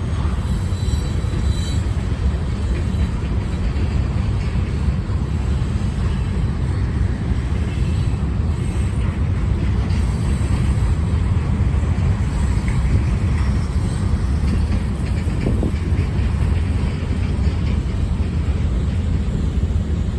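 Freight cars rolling past on the rails: a steady, loud low rumble of steel wheels on track.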